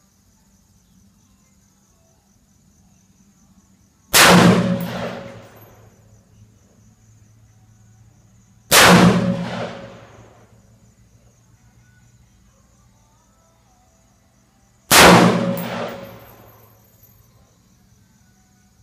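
Three single shots from an AR-15-type rifle in 5.56 mm, fired several seconds apart (gaps of about four and a half and six seconds), each a sharp crack followed by a long echoing tail lasting a second or two.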